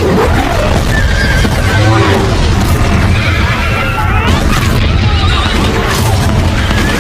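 Loud, busy film soundtrack: music under voice-like or animal-like cries that rise and fall in pitch, over a constant low rumble.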